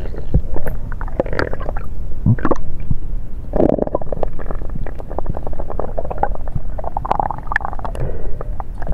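Underwater water noise against a camera housing: muffled gurgling and bubbling swells that come and go irregularly, with scattered small clicks.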